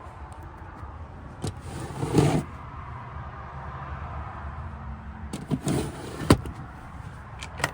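Clicks, knocks and two short scraping sounds of a camper van's interior cupboards and fittings being handled, the loudest a sharp knock about six seconds in, over a steady low rumble.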